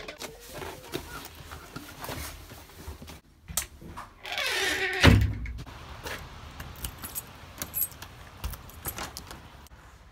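Keys jangling and clicking as a key is worked into a uPVC door's lock, with a heavy door thud about five seconds in.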